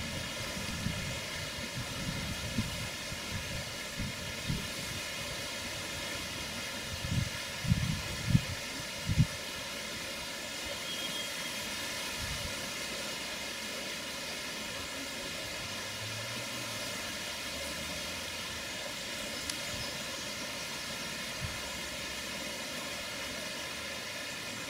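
Steady outdoor background noise, with a handful of short low thumps on the microphone in the first ten seconds, the loudest around eight seconds in.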